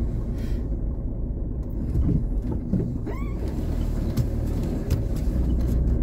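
Citroën Berlingo Multispace van driving slowly, its engine and tyres giving a steady low rumble heard from inside the cabin.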